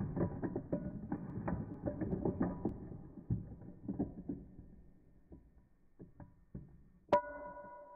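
Metal spoon stirring ice cubes in a glass of iced espresso: a fast run of clinks and rattles against the glass that thins out to a few single clinks. About seven seconds in the spoon strikes the glass, which rings on with a steady, clear tone.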